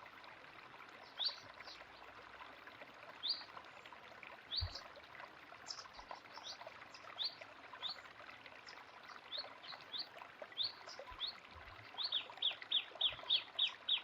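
Small birds chirping over steadily running water. The short high chirps come singly and scattered, then in a quick run of about three a second near the end.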